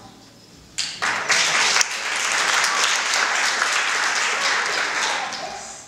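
Audience applauding, breaking out suddenly about a second in and dying away near the end.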